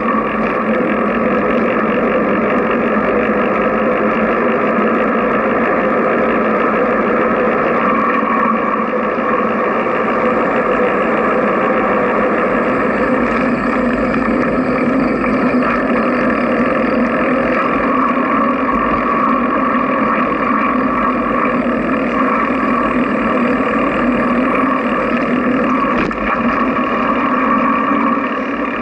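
Steady wind and road rush on a bicycle-mounted camera riding a paved trail, a constant noise with no breaks.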